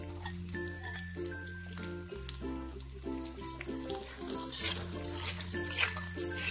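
Background music with a steady bass line, over the hiss of sliced garlic, shallots, onion and chillies sizzling as they are stir-fried in a little rendered chicken-skin fat in a wok. The sizzle and the spatula's strokes grow louder in the second half.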